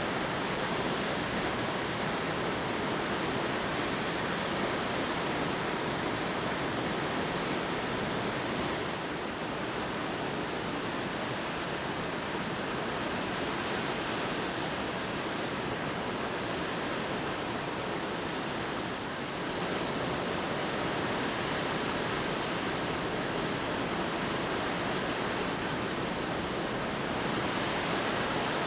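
Waterfall: water falling steadily, a dense, even rushing noise that dips a little in level for about ten seconds in the middle.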